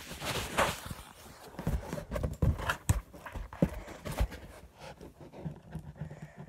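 Handling noise from a phone held right against the microphone: fingers and fabric rubbing, with irregular knocks and thumps that thin out after about four seconds.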